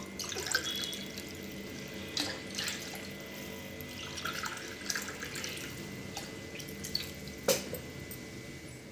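Water being poured into a stainless steel tumbler and from it into a steel bowl of curd, a steady splashing trickle, with a few sharp clicks and knocks, the loudest about seven and a half seconds in.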